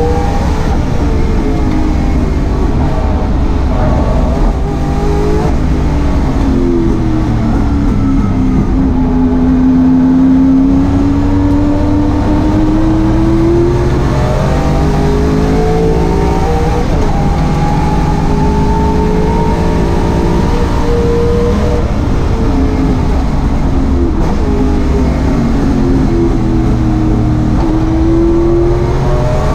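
Holden Commodore race car's engine heard from inside the cockpit at racing speed, its note climbing slowly and then dropping back sharply about four times as it comes off and back onto the throttle.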